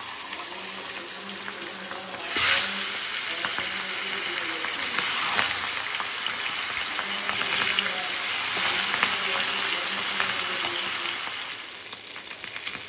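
Fish heads sizzling as they fry in hot oil in a non-stick wok, a dense steady hiss with a sharp louder flare about two and a half seconds in.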